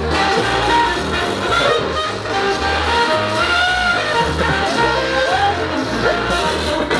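Background music: a song with a singing voice over a steady bass line.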